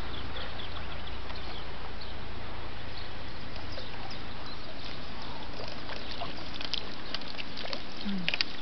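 Outdoor lakeside background: a steady hiss with scattered short high chirps. Near the end come a few sharp clicks and a splash of water as a landing net is lifted out with a fish, water dripping from it.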